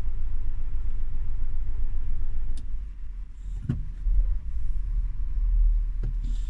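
Steady low rumble from a Renault Grand Scenic 1.6 dCi that eases off a little under three seconds in, with a sharp click then and short knocks about a second later and near the end.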